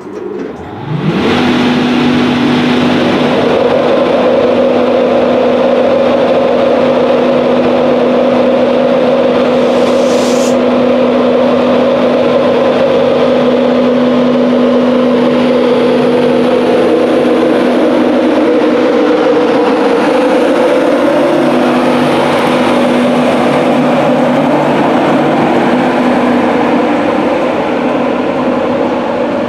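Class 91 electric locomotive pulling away from the platform: a rising whine about a second in settles into a loud, steady hum of its traction equipment. A short high hiss comes about ten seconds in.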